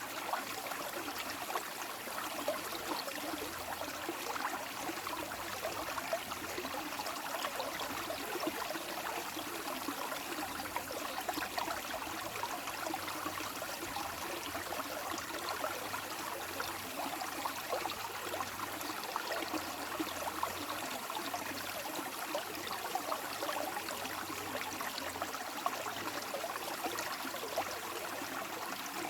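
Flowing water running in a steady, even rush.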